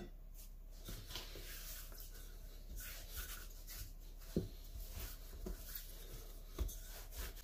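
Wooden rolling pin rolling out yeast dough on a wooden board: faint, soft rubbing strokes with a couple of light knocks.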